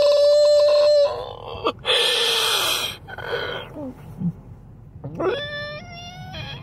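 A man crying: a long, steady-pitched wail that breaks off about a second in, then gasping sobs, and a rising whimpering cry near the end.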